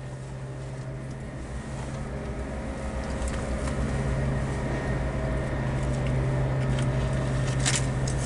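Steady low machinery hum that slowly grows louder, with a few faint clicks.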